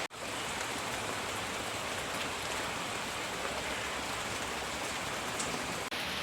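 Steady rain falling, an even hiss of drops, briefly cutting out for an instant at the start and again just before the end.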